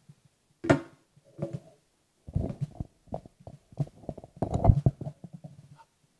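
Microphone handling noise: low thumps, rubbing and clicks as a handheld microphone and a mic on a stand are moved and adjusted, densest from about two to five seconds in.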